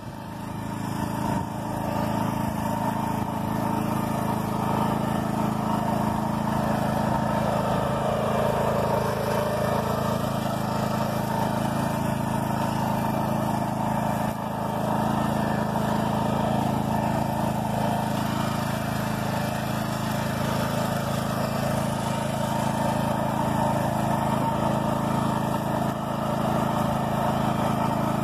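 BCS two-wheel walk-behind tractor's engine running steadily while it pulls a weighted roller crimper, with a brief dip in loudness right at the start.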